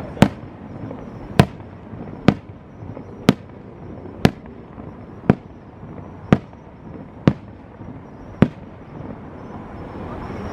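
Aerial fireworks bursting in a steady series of sharp bangs, about one a second, nine in all, with a continuous noisy background between them.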